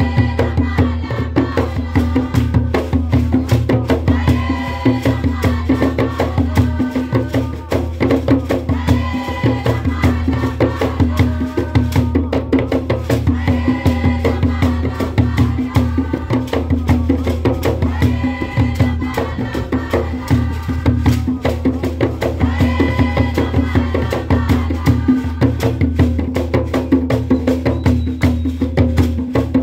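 Live traditional African dance music: a group of voices sings a short phrase that recurs about every four to five seconds, over fast, dense hand-clapping and rattling percussion, with a steady low rumble underneath.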